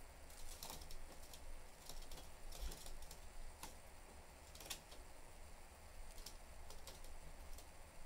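Budgies moving about in their cage, their beaks and claws making scattered light clicks and taps at irregular intervals.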